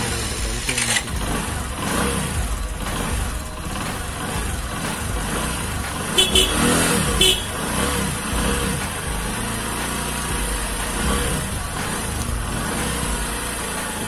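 Motorcycle engine idling steadily, with two short high beeps about six and seven seconds in.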